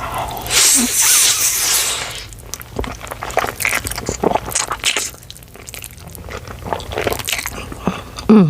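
A big mouthful of cheesy Buldak ramen noodles slurped in with a loud, noisy rush for about a second and a half, then chewed with many wet, clicky mouth sounds. A short vocal sound near the end.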